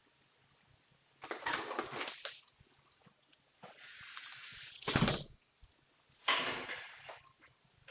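Rustling, scraping noises with a hiss, and one heavy thump about five seconds in, heard through a doorbell camera's microphone.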